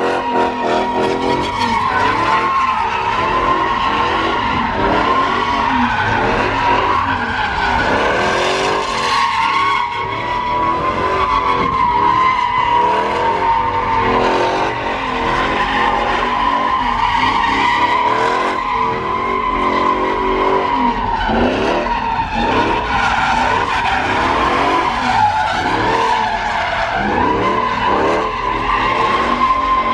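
Dodge Ram pickup doing donuts: its tyres squeal steadily against the pavement while the engine revs rise and fall over and over.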